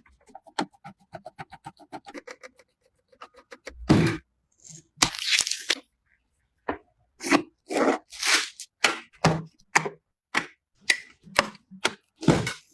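PC parts and packaging being handled during a build. There are light clicks and ticks at first, then from about four seconds in a string of louder, irregular crackling and tearing noises.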